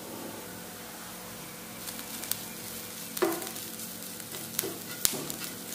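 Chopped onion, carrot and spices sizzling in oil in a non-stick frying pan. From about two seconds in, a wooden spatula scrapes and knocks against the pan as the masala is stirred, with the sharpest knock a little past three seconds.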